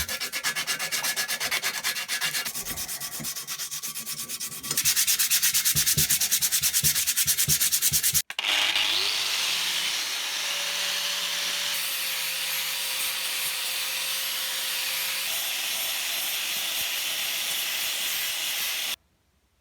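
Quick, regular back-and-forth hand sanding strokes, about four or five a second, growing louder about halfway through. After a cut, a small electric power tool runs steadily with an abrasive hiss and a faint hum, then stops abruptly near the end.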